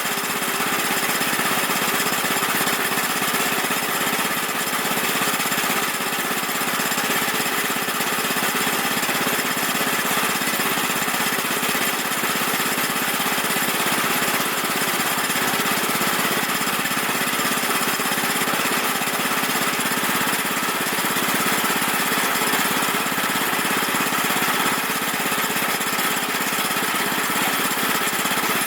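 Woodland Mills HM122 band sawmill running steadily on its 9.5 hp engine, its band blade cutting through a dry cedar log.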